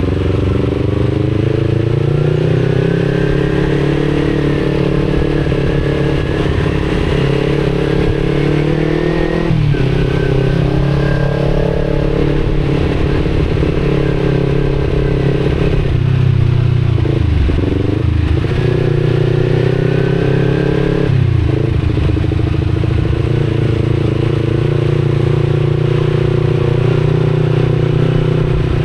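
Kawasaki Z250 parallel-twin with an Akrapovic exhaust, heard from the rider's seat. The revs climb steadily, fall sharply at a gear change about a third of the way in, and climb again. Revs dip a couple more times past the middle, then hold steady to the end.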